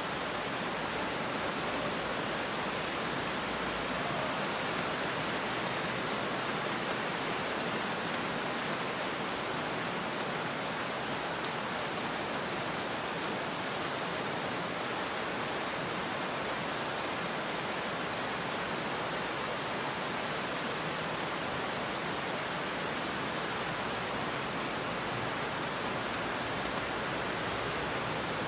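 Heavy rain falling steadily on a road and roadside trees: a continuous even hiss with faint ticks of single drops.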